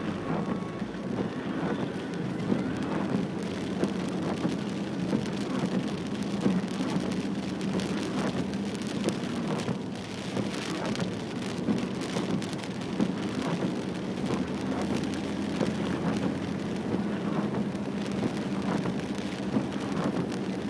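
Rain falling on a vehicle: a steady hiss scattered with many sharp drop ticks, over a steady low engine drone.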